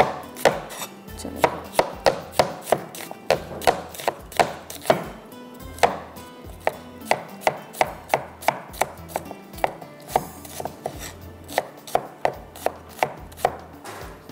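Kitchen knife chopping on a cutting board: a steady run of sharp knocks, about two a second.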